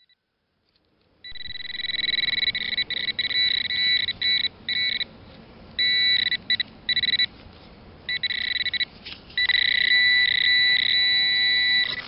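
Handheld metal-detecting pinpointer probe giving its high-pitched electronic buzzing alert as it is swept through loose soil. The alert starts about a second in, cuts in and out in short bursts, and near the end sounds unbroken for a couple of seconds. The tone signals metal close to the probe's tip: a small buried find.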